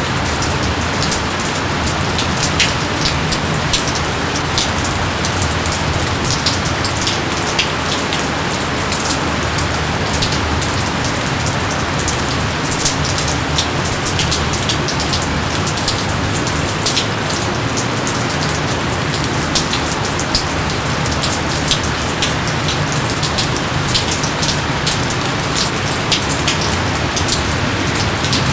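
Steady rain: an even hiss with many sharp strikes of close drops scattered through it.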